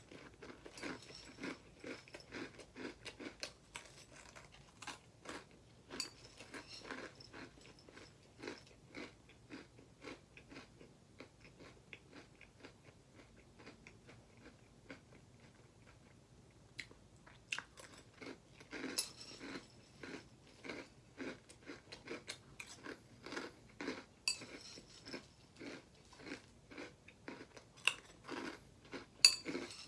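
A person chewing and crunching crunchy breakfast cereal in quick, irregular bites. The crunching eases off for a few seconds in the middle and is louder again from about 18 seconds in.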